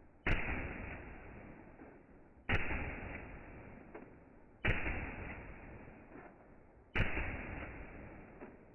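Steyr AUG 5.56 rifle firing single shots, heard slowed down in slow-motion playback. There are four shots about two seconds apart, each a sudden crack that fades away slowly over the following two seconds.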